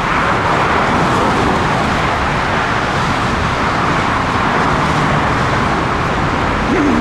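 Steady, loud rushing noise of jet airliner engines.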